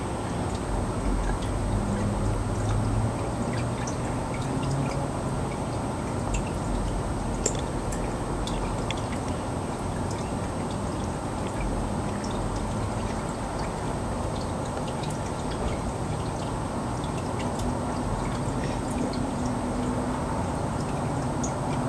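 Steady trickling and gurgling of aquarium water, typical of a filter or airstone running, with scattered faint drip-like clicks.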